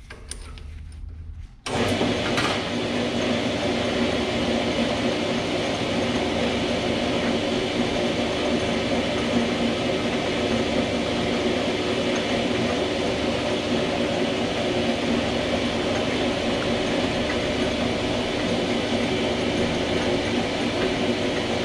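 Small metal lathe switching on about two seconds in, then running steadily, its motor and gear train giving a clattering whine. Meanwhile a 10.5 mm drill bit in the tailstock is fed into the spinning workpiece.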